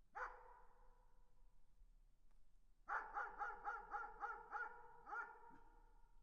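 A dog barking in the distance: a single bark, then about three seconds in a quick run of about seven barks and one more shortly after. Each bark trails off in a long echo.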